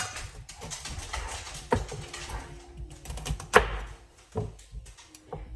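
Kitchen knife chopping celery on a cutting board: irregular knocks of the blade meeting the board, the loudest a little past halfway.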